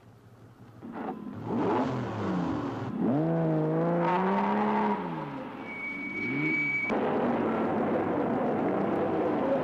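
Sports car engine revving, its pitch sweeping up and falling back several times, then running hard as the car drives off fast. A brief high steady tone sounds around six seconds in.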